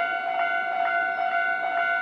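Japanese railway level-crossing alarm ringing, an electronic bell tone struck a little over twice a second with each strike ringing on into the next, the warning that a train is approaching.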